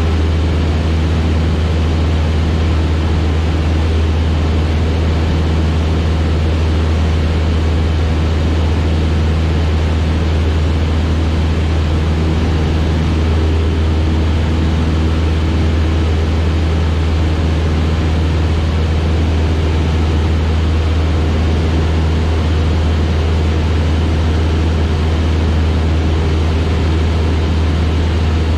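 Single-engine piston airplane's engine and propeller droning steadily in cruise, heard inside the cabin as a loud, even deep hum with airflow hiss over it.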